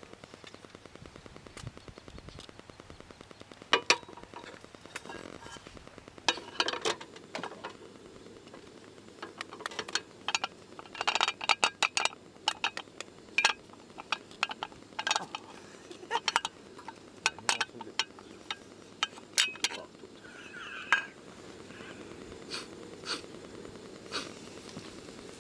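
Cookware and utensils clinking and knocking in short, irregular strokes, busiest in the middle stretch.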